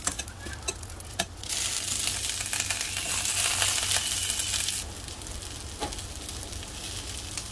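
Battered green chili peppers stuffed with a beef and tofu filling, frying in oil in a stainless steel pan. It starts with crackling and popping, then a louder, steady sizzle for about three seconds while the peppers are turned over with tongs, then a quieter sizzle with scattered pops.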